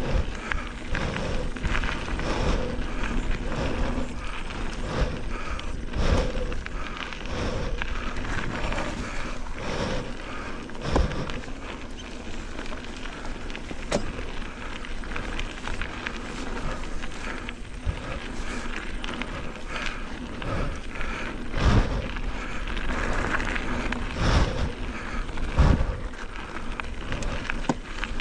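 Mountain bike being ridden over a dirt trail: steady tyre and drivetrain noise with the bike rattling, and frequent sharper knocks as it hits bumps, a few louder ones near the middle and towards the end.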